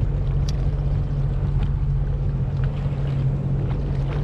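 Sea-Doo FishPro personal watercraft engine running steadily, a constant low hum with a little water and wind noise over it and a few faint clicks.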